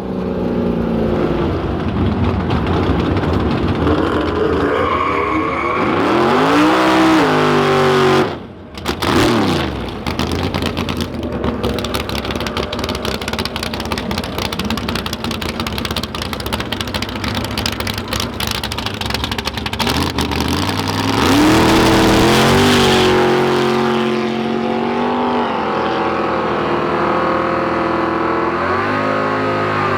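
Drag cars' engines revving and running at full throttle. The pitch climbs and falls around the eighth second, cuts off abruptly, then gives way to a long stretch of loud, rough running, with more rising and falling revs near the end.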